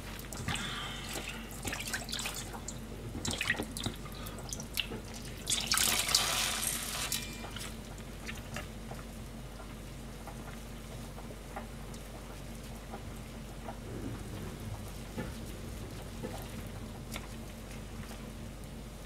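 Water splashing and dripping in a kitchen bowl as soaked food is lifted out and handled, loudest about six seconds in. After that, only light handling sounds over a low hum.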